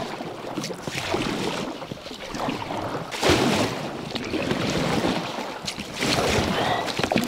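Inflatable kayak being paddled up onto the bank, its hull scraping and grinding over shore ice and snow among paddle splashes, with surges about three seconds in and again about six seconds in.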